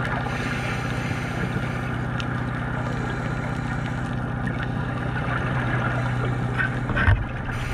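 Boat engine heard underwater: a steady low hum with a rapid throb beneath it. A brief louder noise breaks in near the end.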